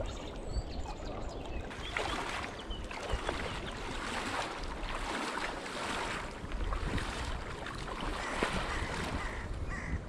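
River water flowing, a steady rushing wash with occasional brief splashes.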